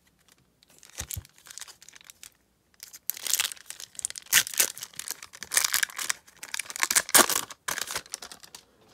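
A 1991-92 Upper Deck basketball card pack's wrapper crinkling and tearing as it is ripped open by hand, a dense run of sharp crackles starting about three seconds in. A soft knock comes about a second in, before the crackling.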